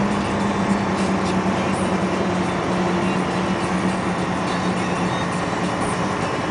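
UD Quon heavy dump truck's diesel engine pulling hard at full throttle while climbing loaded uphill. The engine note holds steady.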